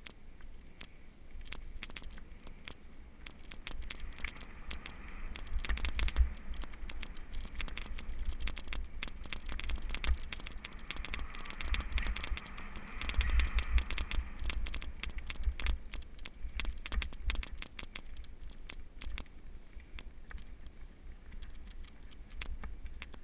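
Mountain bike riding fast down a dirt singletrack: tyres scraping and crunching over the trail, the bike rattling and clicking over bumps, with wind rumbling on the camera microphone. It gets louder around six seconds in and again in the middle as the speed picks up.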